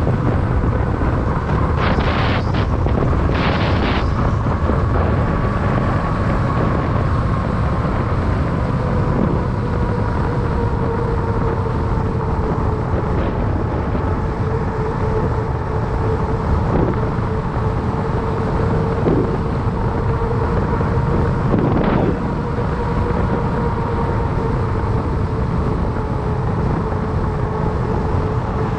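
Wind rushing over the microphone of a fat bike rider rolling along a paved path, with a steady hum from the wide knobby tyres on asphalt that drifts slowly in pitch. A few brief knocks stand out, about two and four seconds in and again past the twenty-second mark.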